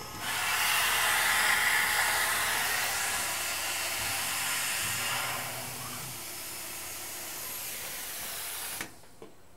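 Air-mist coolant nozzle hissing steadily on a Tormach PCNC 1100 CNC mill while a No. 35 drill feeds into a 4140 steel part; the hiss eases off as the drill retracts and cuts off suddenly near the end.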